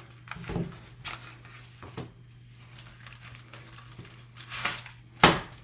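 A knife being worked into and along a cardboard chocolate bar box to open it: scattered small taps and scrapes, with one sharp knock near the end.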